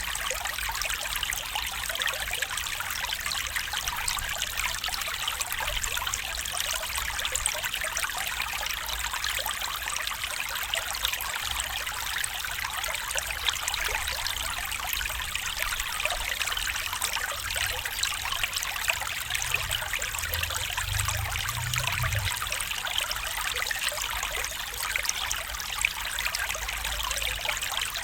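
Stream water trickling and babbling steadily, an even rushing hiss.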